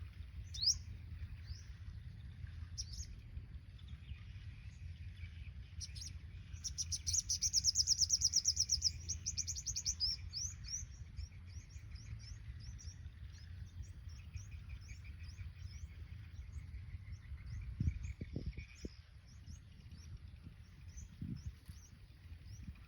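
Sunbirds calling: high, thin chirps, a fast loud trill about seven seconds in, then a long run of short quick notes. A steady low rumble lies underneath, with a few knocks about eighteen seconds in.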